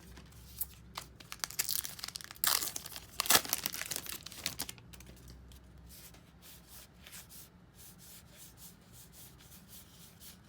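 A trading card pack wrapper being torn open and crinkled for a few seconds, the loudest part about two to five seconds in. After that come quick, faint ticks as the cards are flipped through one by one.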